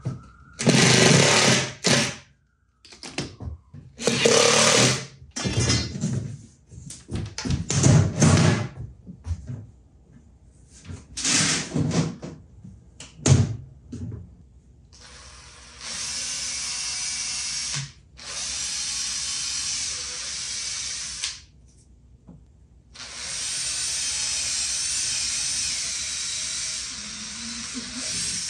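Cordless drill driving screws into a wooden cabinet box in several short, loud bursts. In the second half it runs in three longer, steady spells of a few seconds each.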